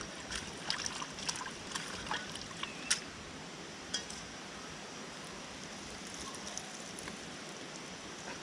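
Steady rushing of river water, with a few light clicks and knocks over the first four seconds.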